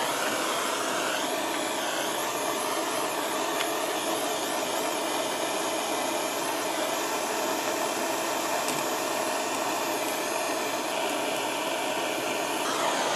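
Hand-held propane soldering torch burning with a steady hiss, its flame heating the model steam engine's cylinder while the cylinder cap is soldered on.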